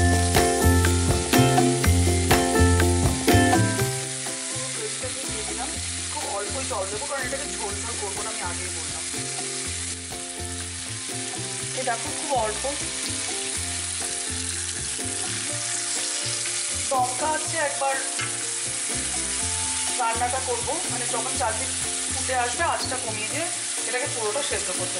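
Marinated fish sizzling in hot mustard oil in a pan with onion, stirred now and then. Background music with a steady beat plays under it, louder for the first few seconds.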